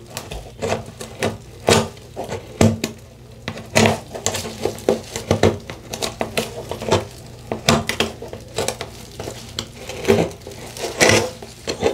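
A plastic silicone-and-trowel scraper scraping and picking old caulk out of the joint between shower tile and a plastic shower pan: a run of short, irregular scratches and clicks.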